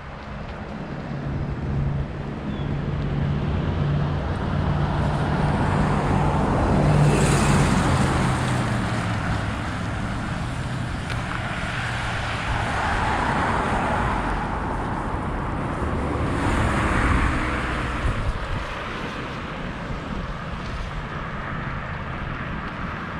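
Cars driving past on a street: a low engine hum at first, then three passes that swell and fade, the first the loudest.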